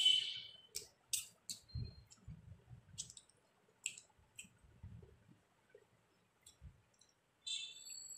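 Close-up eating sounds of a person eating rice and fish by hand: a slurp at the start, then scattered wet lip smacks and sharp mouth clicks while chewing.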